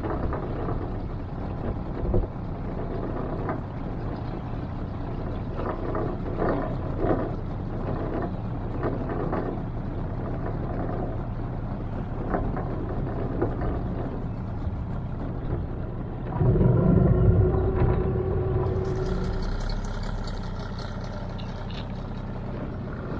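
Outboard motor of a small river boat running steadily, with a louder surge about two-thirds of the way through.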